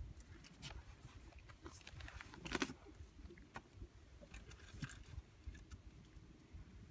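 Wind buffeting the microphone as a gusty low rumble, with scattered light clicks and knocks, the loudest about two and a half seconds in.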